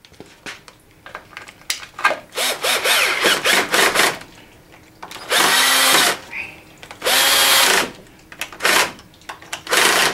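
Cordless drill-driver with a screwdriver bit, driving screws into a two-stroke outboard's air silencer cover: several quick trigger bursts, then two runs of about a second each, and two more short bursts near the end, the motor's pitch rising as it spins up.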